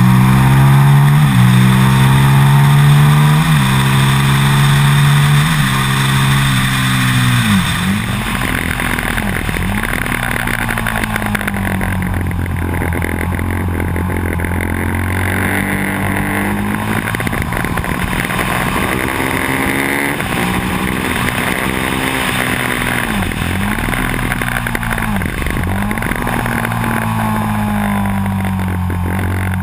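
Onboard sound of a sport motorcycle's engine at speed on a racetrack: the revs climb and drop back sharply four times in the first six seconds as it shifts up through the gears. The note eases about seven seconds in, then dips and recovers quickly several times, with wind rushing over the camera throughout.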